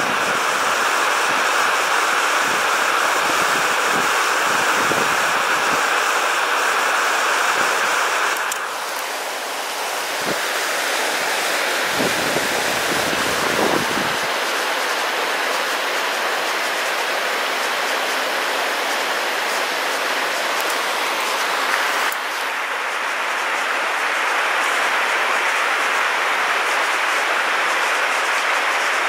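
River water rushing over boulders and small rapids, a steady, even noise. It changes abruptly twice, about a third of the way in and again about three quarters through.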